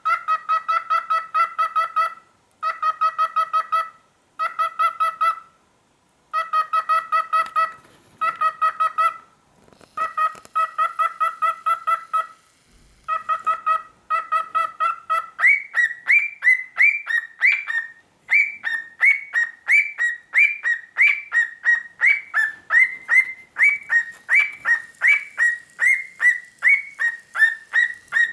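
Cockatiel calling: bursts of rapid, repeated chattering notes broken by short pauses. About fifteen seconds in, this gives way to a steady run of rising whistled chirps, about two a second.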